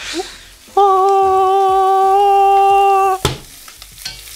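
A single voice holds one steady sung 'aah' note for about two and a half seconds, starting about a second in. It is followed by a short knock, with a frying pan sizzling faintly underneath.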